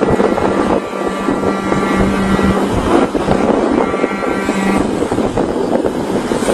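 Wind buffeting the microphone and road noise from a vehicle travelling at speed in traffic. A steady low droning tone sounds over it for about two seconds and again briefly near the middle.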